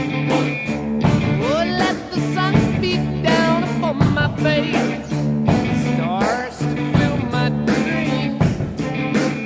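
Background rock music with a steady beat, bass and a gliding sung or guitar melody line.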